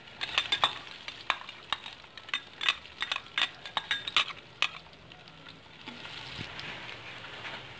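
Sliced red onions sizzling as they drop into hot annatto oil and sautéed garlic, with a metal spoon clicking and scraping against the bowl and aluminium pot. The clicks stop about five seconds in, leaving a steady sizzle as the onions are stirred.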